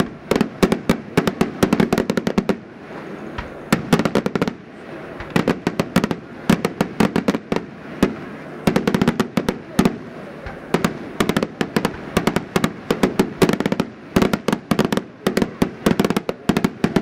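Daytime aerial fireworks bursting overhead: rapid volleys of sharp bangs that come in dense clusters of a second or two, with short lulls between them.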